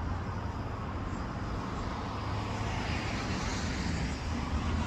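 Steady road traffic noise: a continuous low rumble with an even hiss of passing cars.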